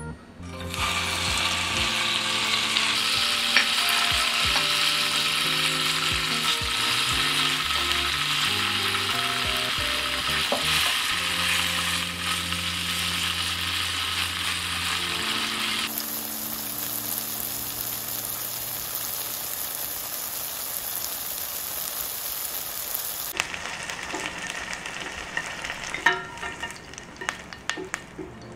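Cubes of soft tofu sizzling as they fry in hot olive oil in a pan, with light background music. The sizzle dies down about three quarters of the way through, and a single sharp tap sounds near the end.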